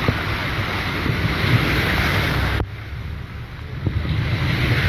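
Hurricane wind and heavy rain, the gusts buffeting the microphone with a low rumble. The noise drops suddenly a little past halfway, then builds back up about a second later.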